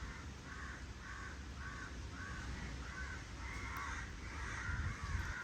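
A bird calling over and over, about two calls a second, the last few calls longer and louder.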